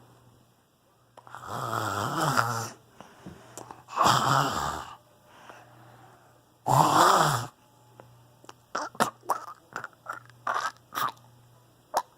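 A woman making deliberately weird noises with her voice: three long, rough, breathy sounds with a bending pitch, a second or two apart. From about nine seconds in comes a quick run of short, sharp vocal sounds.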